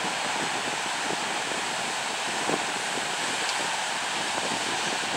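Steady rush of ocean surf breaking on the beach in a brisk wind, with wind rumbling on the microphone.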